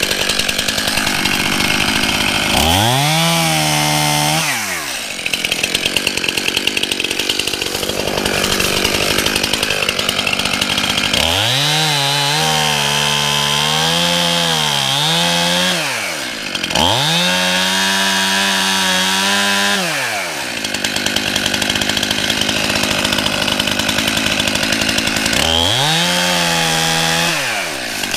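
Stihl Farm Boss two-stroke chainsaw running hard. Its engine note sags and recovers four times, as it does under load when the chain bites into wood.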